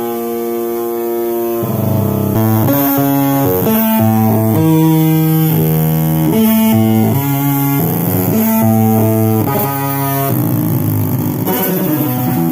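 Music: an instrument plays a slow line of held notes, each rich in overtones, stepping from pitch to pitch every half second to two seconds. After about ten seconds the notes give way to a wavering, gliding sound.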